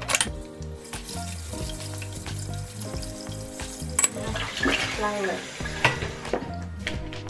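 Dishes being washed by hand in a kitchen sink: tap water running and a sponge scrubbing, with a few sharp clinks of glass and dishes and a brief squeak about five seconds in.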